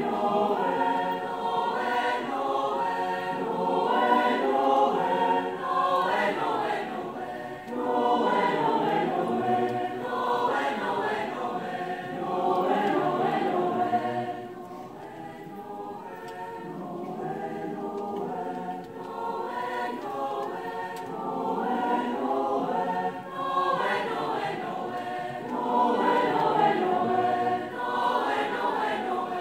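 Large mixed choir of men's and women's voices singing together. The singing turns softer about halfway through, then swells again toward the end.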